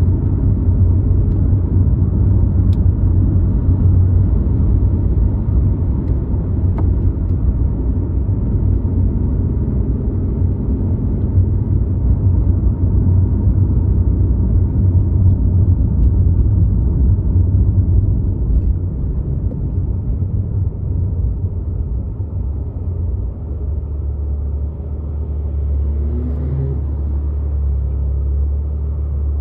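BMW i8 hybrid sports car on the move, heard as a steady low rumble of engine and road noise. About three-quarters of the way through, the rumble settles into a smoother, steadier low hum.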